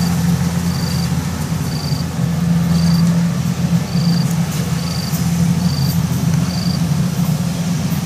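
Kubota DC70 combine harvester's diesel engine running steadily while it harvests rice, a constant low mechanical drone. A short high chirp repeats about once a second over it.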